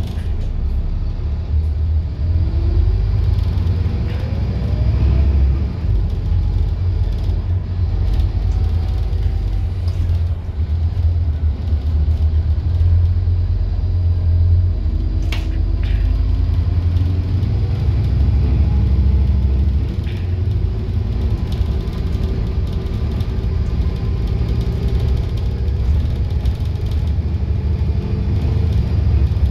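Scania N230UD double-decker bus running, heard from inside the passenger saloon: a steady low diesel engine and road rumble, with the engine note rising several times as the bus accelerates, and occasional short rattles from the interior.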